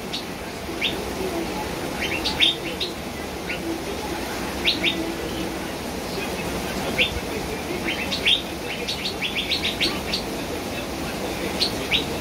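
Caged songbird giving short, sharp chirps, singly and in quick runs, with a fast run of chirps about nine to ten seconds in, over a steady background hiss.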